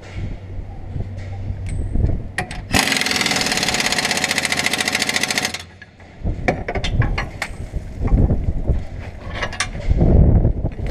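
Pneumatic air wrench on a shop air hose running in one steady burst of about three seconds, a rapid even rattle, starting about a third of the way in. Sharp metallic clinks of hand tools come before and after it.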